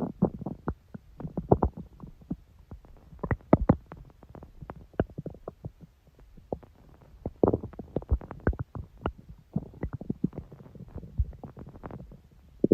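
A human stomach growling and gurgling: an irregular run of short pops and bubbling gurgles, coming in uneven clusters, with a quieter stretch about halfway through.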